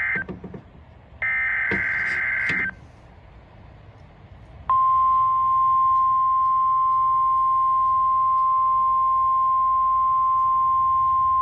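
Midland ER310 weather radio's speaker sounding an Emergency Alert System SAME header for a Tornado Watch: the tail of one warbling data burst, then a last burst of about a second and a half, and about two seconds later the steady single-pitch 1050 Hz NOAA Weather Radio alert tone starts and holds.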